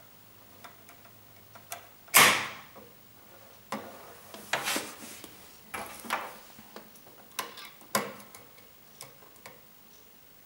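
Wire-mesh live-catch mouse trap's spring door snapping shut with one sharp metallic clack about two seconds in, ringing briefly. This is followed by several lighter metal clicks and knocks from the wire cage.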